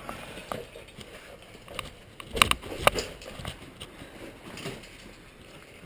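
Scuffing and rustling of a person scrambling through a tight gap between boulders with a handheld camera, with a few sharp knocks about two and a half seconds in.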